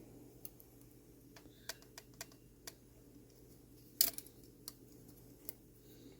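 Light, irregular clicks and taps as a 1960s mantel clock movement's wheels are nudged between the plates to check their end shake, with one sharper click about four seconds in.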